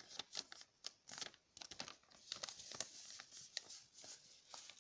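A folded sheet of paper being handled and creased by hand: faint, irregular rustling and crackling.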